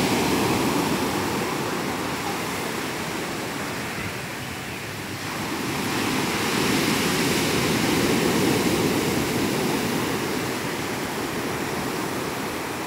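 Heavy surf of a rough sea breaking on the beach: a continuous rush of churning water that eases slightly, then swells again about halfway through as another big wave breaks.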